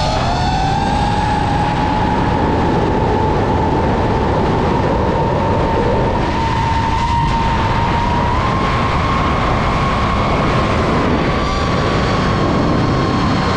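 DJI FPV drone's motors and propellers whining in flight. The pitch is near steady, stepping up slightly about half a second in and again around eight seconds in, over a heavy rush of wind noise.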